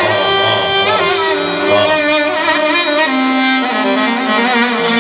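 Violin playing an ornamented Middle Eastern melody with wavering vibrato, over a steady band accompaniment.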